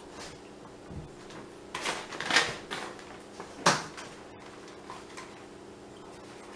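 Handling noise from a chewed-through headphone cord being picked up and moved about close to the microphone: a few scattered knocks and short rustling scrapes. The loudest is a sharp knock about three and a half seconds in.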